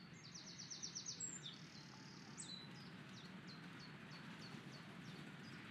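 Songbirds singing faintly: a quick run of high notes near the start, then a string of short falling chirps, over a faint steady low background noise.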